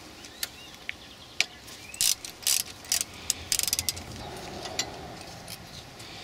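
Hand socket ratchet clicking in short, irregular runs, with a quick run of clicks a little past halfway, as the rear derailleur's mounting bolt is loosened and backed out.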